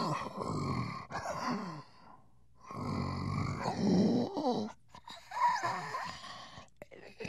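Gorilla breathing heavily with grunts and groans, in about three bouts with a short pause about two seconds in.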